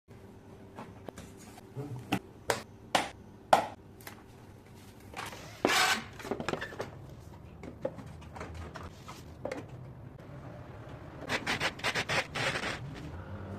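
Hand work on a car part: a few sharp clicks and knocks, then scraping and rubbing strokes, with a quick run of them near the end.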